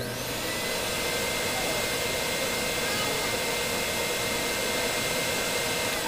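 A motor running steadily at constant speed: a continuous hiss with a fixed whine. It starts abruptly and cuts off suddenly at the end.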